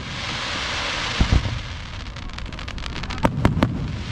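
Aerial fireworks bursting: low booms about a second in, a steady crackle from glittering effects throughout, and a quick cluster of three sharp bangs near the end.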